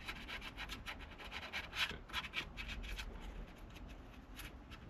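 Fine-grit sandpaper rubbed by hand over a steering wheel rim in quick back-and-forth strokes, fading near the end.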